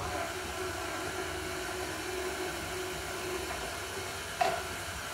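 Tilt-head stand mixer switching on and running steadily, its paddle beating egg into a rubbed-in butter and flour crumb. One sharp knock about four and a half seconds in.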